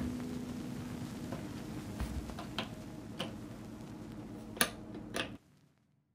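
A handful of sharp plastic clicks and taps as the stacked trays and lid of a food dehydrator are fitted and its panel is touched, over the fading tail of background guitar music. The sound cuts off abruptly about five seconds in.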